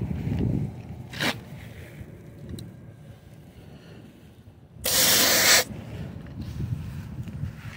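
A short, loud hiss of air, lasting under a second about five seconds in, as a dial tire-pressure gauge's chuck is pressed onto a truck tire's valve stem. Before it come rubbing and scraping handling noises and a single click.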